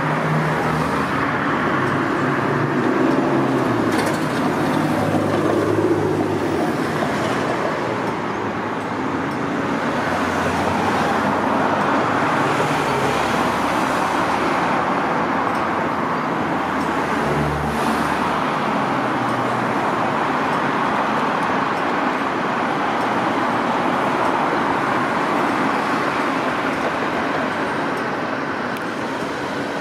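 Steady road traffic on a busy street: cars and other motor vehicles passing, engines running and tyres on the road, without letting up.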